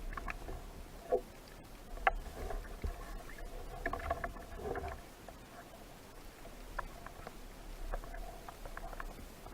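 Scattered irregular clicks and short scratchy crackles over a low steady rumble, as picked up by an underwater camera during a spearfishing dive.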